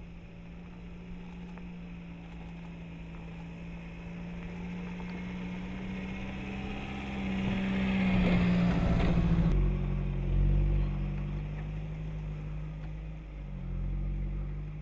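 Jeep Renegade's engine running as it drives along a dirt track. It grows louder as it comes close and passes about eight seconds in, with tyres crunching on gravel. The sound breaks off abruptly and gives way to a lower, steady engine hum.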